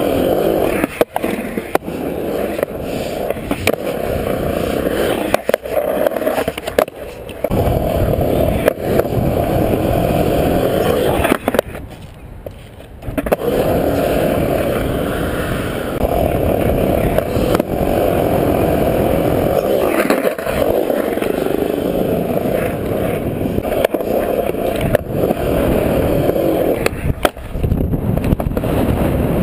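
Skateboard wheels rolling on a concrete skatepark surface in a steady rumble, with occasional sharp clacks from the board. The rolling drops away for about a second and a half near the middle, then comes back.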